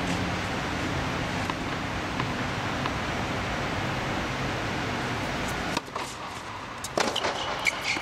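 Steady rushing air noise filling the air-supported tennis dome, which drops away suddenly about six seconds in. About a second later comes one sharp knock of a tennis ball on the hard court.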